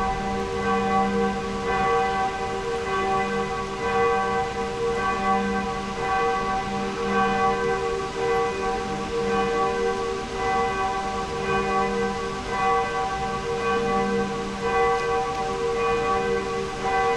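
Cologne Cathedral's bells pealing: several large bells striking in overlapping strokes, their deep tones ringing on continuously.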